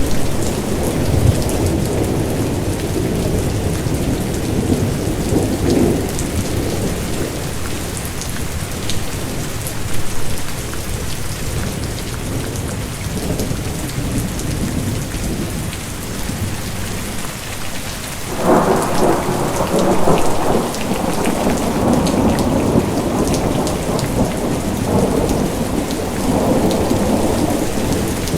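Steady rain with scattered drop ticks under a thunder rumble. The rumble fades about six seconds in, then a new peal of thunder breaks in sharply about two-thirds of the way through and rumbles on to the end.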